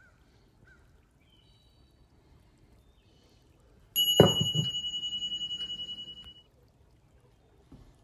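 A cast-metal medallion (a Staff of Ra headpiece) is set down on a wooden workbench about four seconds in: a knock, then the metal disc rings with a clear, high, pulsing tone that fades over about two seconds.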